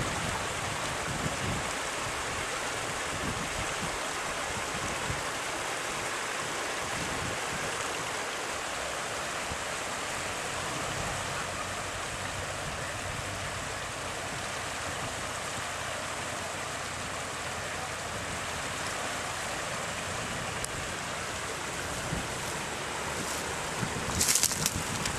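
Steady rushing of floodwater flowing fast and even. A cluster of sharp crackles comes near the end.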